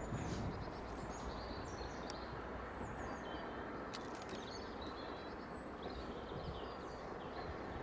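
Small birds chirping and singing over a steady low rumble from Bulleid Light Pacific steam locomotive No. 34028 Eddystone approaching with its train.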